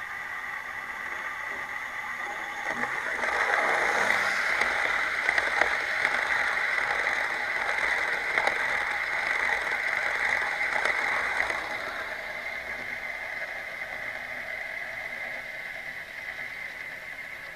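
OO gauge model train running past at rail level: a rising, then fading mechanical rattle of wheels on track, with scattered clicks. It builds about three seconds in, is loudest as the coaches go by, and eases off after about twelve seconds over a steady hiss.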